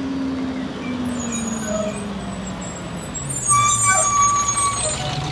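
Rear-loading garbage truck driving past, its engine note falling slowly. About three and a half seconds in, its brakes squeal with a high hiss.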